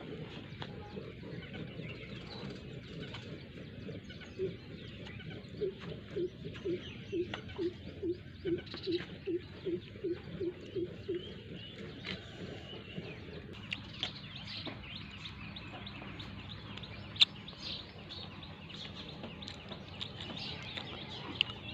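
Milk squirting into a pail in quick, even spurts, about three a second, from a cow being milked by hand; the spurts stop about halfway through. Birds chirp in the background, and there is one sharp click near the end.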